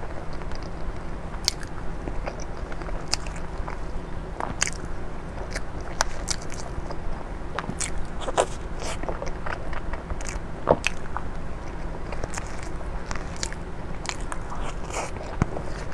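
Close-miked eating sounds: soft wet mouth sounds and smacks as a cream dessert is eaten from a spoon, with light clicks of a metal spoon in a plastic dessert cup, irregular and scattered throughout.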